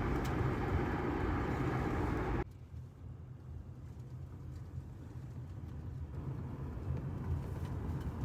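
A car driving: a steady low road rumble that drops suddenly to a quieter rumble about two and a half seconds in, then slowly grows louder again.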